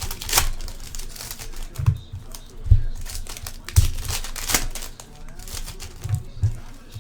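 Trading-card pack wrappers crinkling and cards being handled, with several dull knocks on the table.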